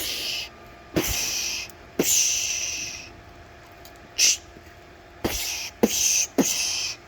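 A man making hissing "pew"-style shooting noises with his mouth: about seven short bursts, each starting with a sharp click.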